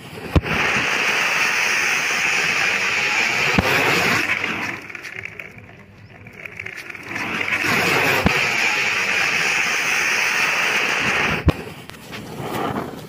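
A firecracker rocket strapped to a plastic toy car, its motor burning with a loud, steady hiss. The hiss is heard twice for about four seconds each, starting and stopping abruptly, with a sharp click at each edge and a quieter stretch in between.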